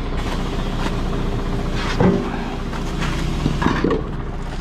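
Truck engine running steadily, with a single clunk about two seconds in.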